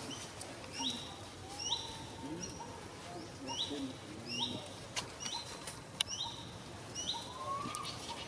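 A bird calling over and over: short high chirps, each rising and then held, repeated roughly once a second, with a few fainter, lower calls underneath.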